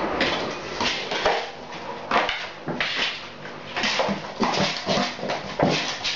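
Cats mating, with short repeated cries coming about two a second.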